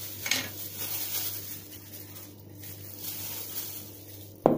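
Faint kitchen handling noise over a steady low hum, then a single sharp knock near the end as a bottle is set down on the counter.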